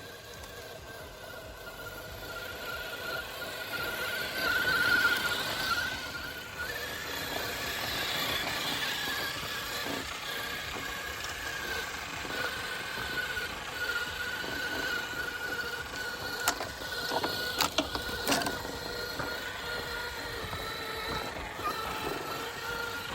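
Axial SCX6 RC crawler's electric motor and drivetrain whining steadily as it drives, the pitch shifting a little with the throttle. A few sharp clicks come close together late on.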